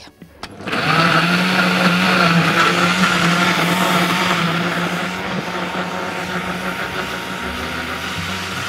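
Electric blender switched on about a second in, its motor running steadily at high speed as it blends mango and ice cream with milk and soda water into a milkshake.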